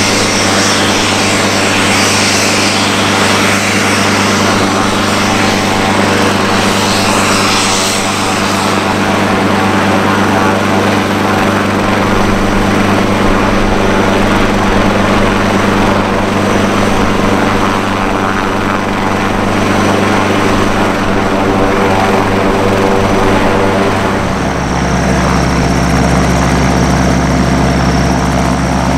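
Twin Garrett TPE331 turboprops of a Fairchild Swearingen Metroliner running at taxi power, a steady propeller drone with a hissing turbine whine over it. The whine is brightest at first and thins about eight seconds in, and a few seconds before the end the engine drone shifts to a lower pitch.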